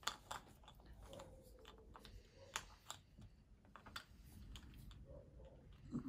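Scattered light clicks and taps of game pieces being set down on a board, with a faint dog barking in the distance now and then.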